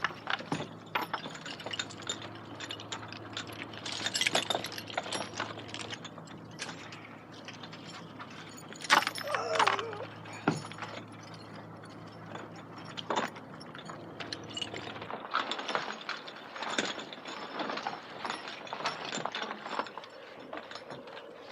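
Metal chains rattling and clinking in irregular bursts, with a short yell about nine seconds in. A low steady hum runs underneath and stops about fifteen seconds in.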